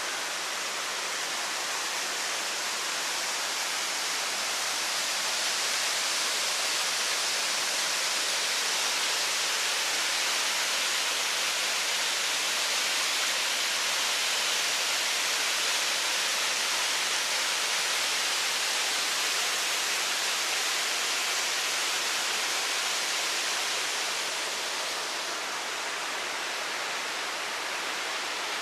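Steady rushing of a waterfall, slightly louder through the middle and easing a little near the end.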